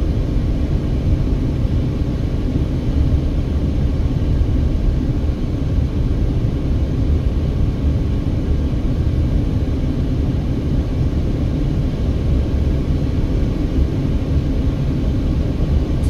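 Steady low rumble of road and engine noise inside the cabin of a Mercedes-Benz cruising along a highway.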